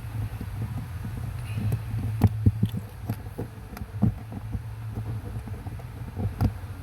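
Irregular clicks and knocks of hand work on a connector plug held by a 7 mm bolt, over a steady low hum.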